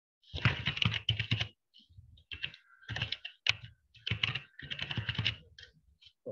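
Typing on a computer keyboard: several quick runs of keystrokes with short pauses between them as a name is typed out.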